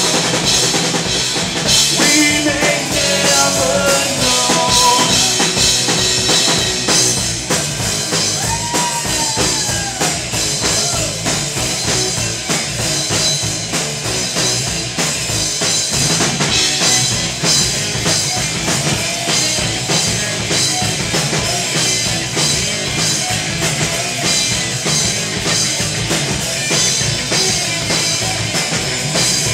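Live rock band playing an instrumental stretch with drum kit, loud and steady, after the vocals end: the song's extended rock finish.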